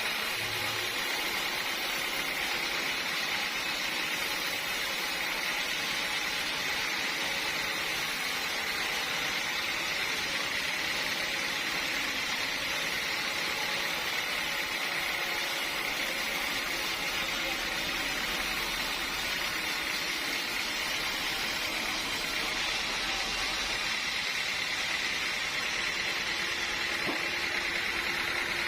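Sawmill machinery running steadily: a constant mechanical hum and hiss with a whine-like band in the upper-middle range, without breaks or impacts.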